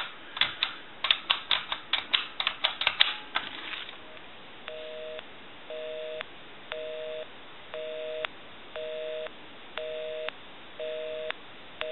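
A quick run of clicks as a phone number is dialled, then a telephone busy signal: two steady tones pulsing on and off about once a second, eight times. The line is busy because the phone is calling its own number.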